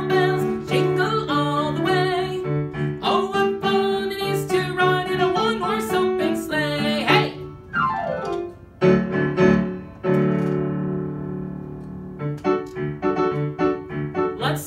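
Piano playing a Christmas song accompaniment with a steady bass line. A quick falling run comes about eight seconds in, then held chords die away before the playing starts again.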